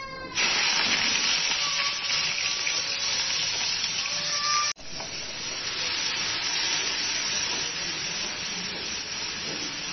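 Chopped onions sizzling in hot mustard oil in a kadai: a steady frying hiss that starts just as they go in, breaks off for an instant about halfway, and carries on while they are stirred with a spatula.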